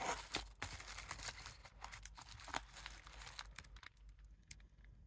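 Paper rustling and crinkling as sticker sheets are handled, with many small crackles, thinning out to a few light clicks and taps in the last second or so.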